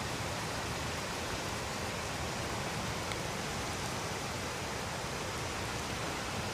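A steady, even rush of water with no breaks, the sound of rain or running floodwater.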